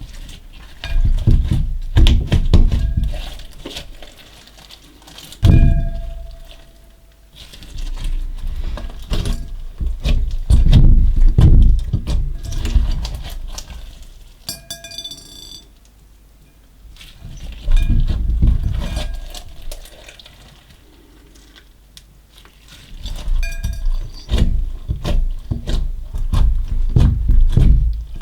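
Slime mixed with small coloured beads being squeezed and kneaded by hand, giving wet squishing with dense crackling clicks from the beads. It comes in about five rounds, separated by quieter pauses.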